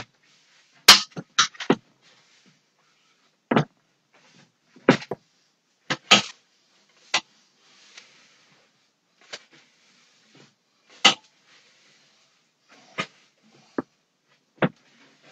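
Irregular sharp knocks and clacks, about a dozen, spaced a second or two apart, with faint brushing noise between them: floor-cleaning tools and household items being knocked and moved on a wooden floor.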